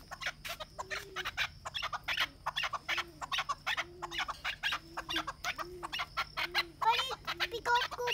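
A chukar partridge clucking in a long, fast run of repeated notes, louder near the end.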